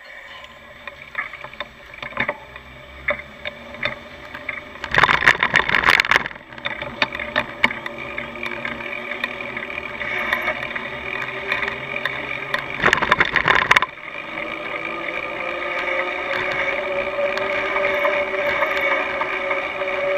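Riding noise of a bicycle in motion, picked up by a camera mounted on the bike: a steady whining hum that rises slightly in pitch over the last several seconds, with ticking and rattling throughout. There are two loud bursts of rattling, about five and thirteen seconds in.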